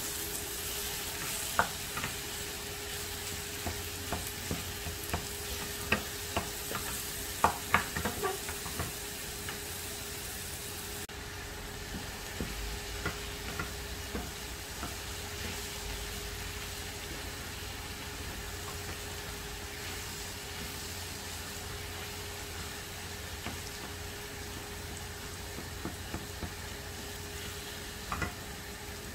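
Minced meat, diced zucchini and chopped tomato sizzling steadily in a non-stick frying pan while a wooden spatula stirs them, with sharp clicks of the spatula against the pan in the first several seconds and again near the end.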